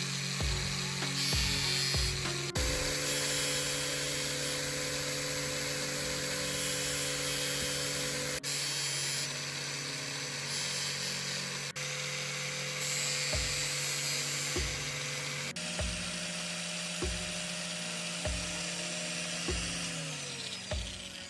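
High-pitched whirring grind of a small power tool sharpening a drill bit, over background music with a steady beat; the grinding sound changes abruptly at several edits.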